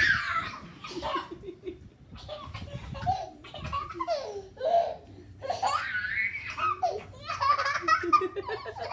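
A toddler laughing hard and high-pitched in repeated bouts while being play-wrestled and held upside down.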